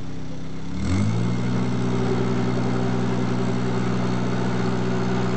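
A narrowboat's engine running under way, with wash churning behind the boat. About a second in the engine note rises and grows louder, then holds steady.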